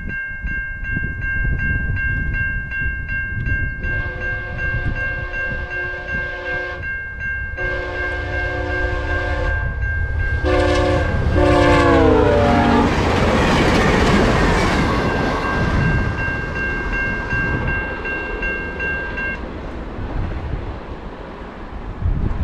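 Level-crossing bell ringing steadily while a VIA Rail P42DC locomotive sounds its horn for the crossing in the long-long-short-long pattern, the last blast dropping in pitch as the locomotive passes. The short passenger train then rushes by, and the bell stops a few seconds later.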